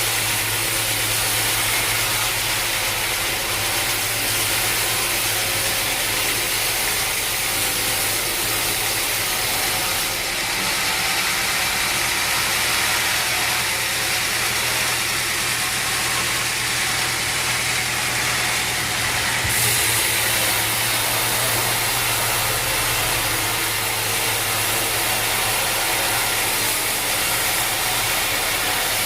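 Sawmill machinery running steadily: a constant low hum under a broad hiss, the hiss turning a little sharper from about ten seconds in until about twenty seconds in.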